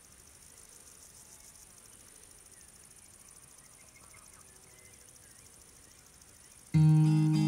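Faint, steady high insect chirring, like crickets in a field. Near the end an acoustic guitar comes in with a loud strummed chord.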